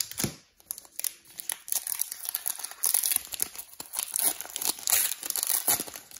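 Foil wrapper of a Pokémon Darkness Ablaze booster pack being torn open and crumpled by hand: a continuous run of sharp crinkling crackles.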